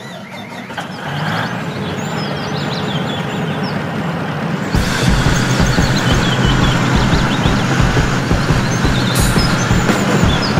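Heavy diesel vehicle engine running, getting louder with an even low pulsing about five seconds in, with birds chirping over it. The engine and birdsong are added sound effects laid over a remote-control model.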